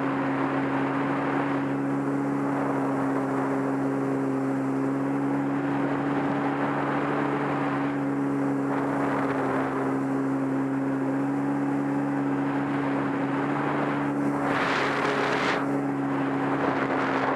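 Sea-Doo personal watercraft engine running at a steady cruising pitch under way, with the hiss of water along the hull. Rushing noise swells briefly twice, about nine seconds in and again near the end.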